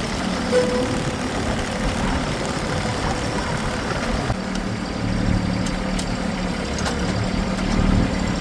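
An engine running steadily at idle, a low hum growing stronger about halfway through.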